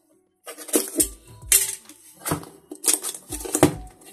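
A cardboard parcel being handled and turned over on a workbench: a run of sharp knocks and scrapes, starting about half a second in, with background music.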